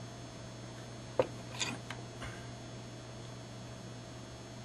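A few small clicks and taps from handling a slot car motor and soldering iron while tinning the armature shaft, about a second and two seconds in, over a steady low hum.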